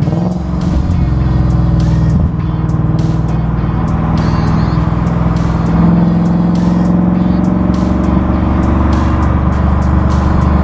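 2015 Ford Mustang GT's 5.0 V8 running hard through an aftermarket Velocity sport muffler, its exhaust note shifting abruptly right at the start and again about two seconds in, then holding a steady, loud drone.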